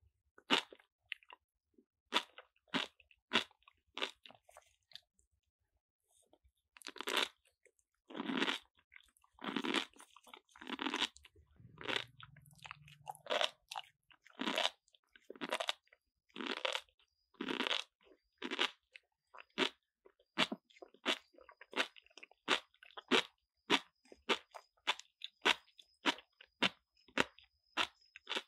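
Young monkeys biting into and chewing crisp raw cucumber: a long run of irregular crunches, loudest and most frequent through the middle.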